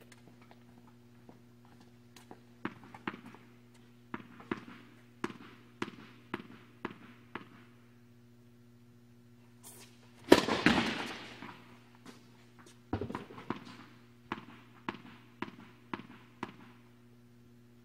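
Tennis ball bounced repeatedly on a hard court, about two bounces a second, then one loud racket strike about ten seconds in that echoes through the hall, followed by another run of bounces. A steady low electrical hum runs underneath.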